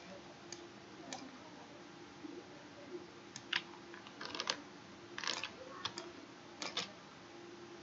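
Clicks of a computer mouse and keyboard while working at a computer, about a dozen irregular taps, some in quick pairs and small clusters, over a faint steady hum.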